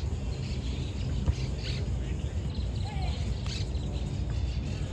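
Small birds chirping repeatedly over a steady wind rumble on the microphone, with a single short thud about a second in.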